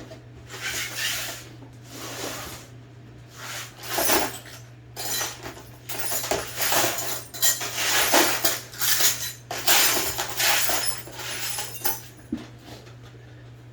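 Small metal parts and tools clinking and scraping against each other in irregular bursts, over a steady low hum.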